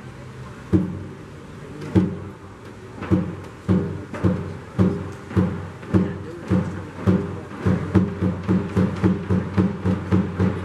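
A group of djembe drums struck together as one, playing a taiko-style timing exercise: single strokes more than a second apart at first, speeding up steadily to about three a second by the end.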